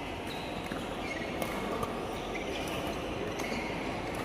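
Badminton play in a sports hall: a few sharp clicks of rackets striking a shuttlecock and short squeaks of shoes on the court floor, over a steady hall hum.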